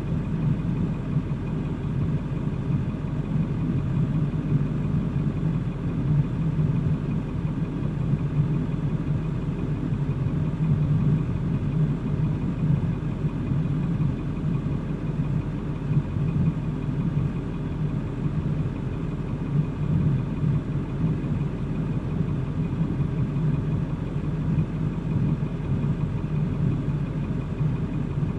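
A vehicle engine idling with a steady low drone that does not rev or change.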